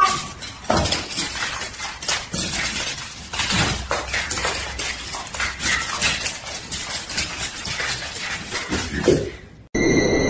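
Dog and cat scuffling on a hard marble floor: a rapid, irregular run of sharp clicks and scrapes from claws and paws skittering on the stone. Near the end it cuts off, and a steady high whine with hiss takes over.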